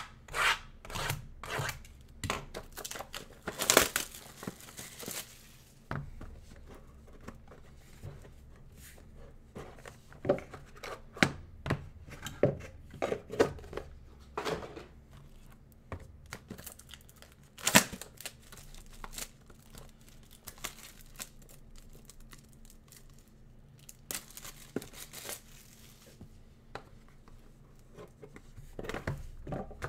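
Plastic shrink-wrap being torn and crumpled off sealed trading card boxes, in a run of sharp rips and crinkles. There is a longer stretch of ripping about four seconds in and again at about twenty-five seconds.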